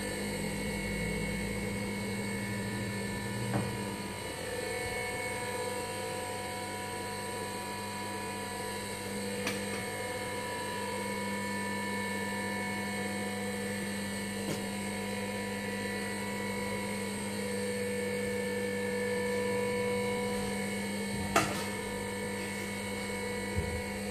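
Juki industrial sewing machine's motor running with a steady hum, broken by a few sharp clicks, the loudest near the end.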